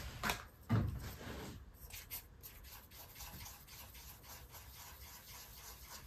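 Paintbrush stirring acrylic paint on a palette: faint, irregular rubbing and scraping of the bristles as black is worked into blue. A soft thump comes about a second in.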